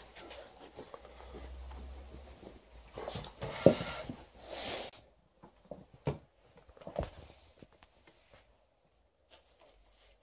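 Rustling and soft bumps of plush toys and bedding being moved about, with a sharp knock about three and a half seconds in followed by a burst of louder fabric rustling.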